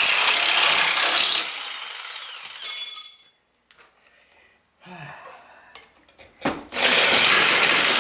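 Handheld power tool running at full speed, then switched off about a second and a half in, its whine falling as the motor spins down. A few clicks and knocks follow, and the tool starts up again near the end.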